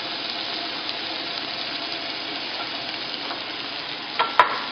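Roasted bell peppers, mirepoix and corn sizzling gently in a soup pot as they sweat, a steady hiss, with two short knocks against the pot near the end.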